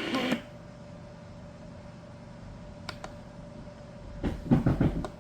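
A weather radio's forecast broadcast cuts off abruptly about half a second in, leaving a faint steady hum with a thin tone. A couple of light clicks follow about three seconds in, then a rapid flurry of clicks and knocks near the end as the radio's buttons are pressed and the set is handled.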